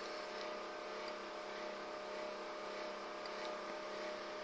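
Steady low background hum with a faint held tone through it, unchanging throughout: room tone with no distinct events.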